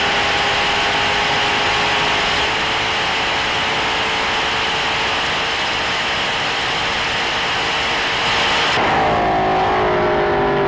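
Hennessey Venom GT's twin-turbo V8 and the rush of wind heard from inside the cockpit at about 270 mph: a steady, loud rush with an engine note under it. Near the end the wind noise drops away and the engine note falls, as the car comes off its top speed.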